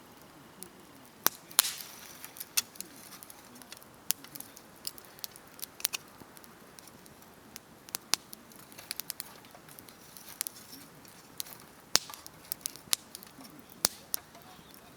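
Wood campfire crackling, with sharp pops at irregular intervals; the loudest come about a second and a half in and again about twelve seconds in.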